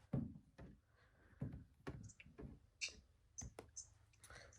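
Light handling noise: about ten quiet, scattered clicks and taps.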